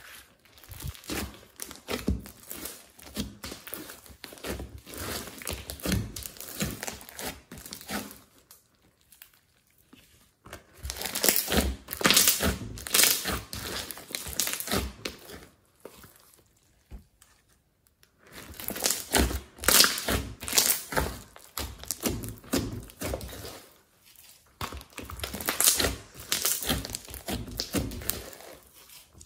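Hands squishing, pressing and stretching thick glossy slime mixed with small beads, giving dense runs of sticky clicks and pops, broken by a few short pauses.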